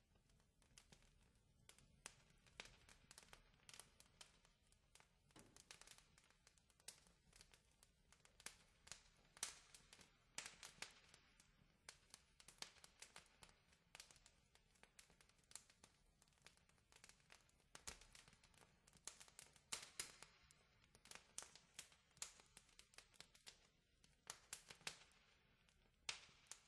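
Near silence with faint, irregular crackling clicks, several a second, some a little louder than others; no music.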